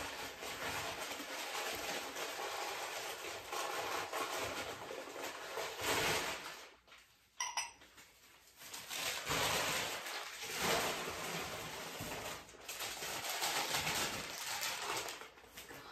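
Packing paper rustling and crinkling as glassware and china are unwrapped, with light clinks of glass and dishes being set down. There is a short pause about halfway through.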